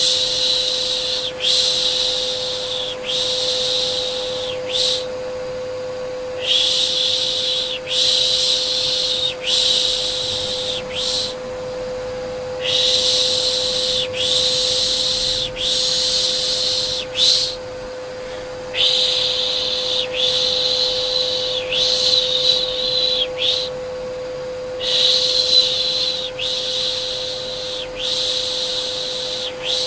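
Soothing shushing 'pşşt' sounds for a baby, repeated in runs of three or four, each about a second and a half long, over a steady vacuum cleaner hum that holds one constant tone.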